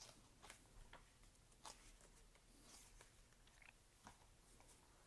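Near silence with a few faint, scattered ticks and soft rustles, as of book pages being turned.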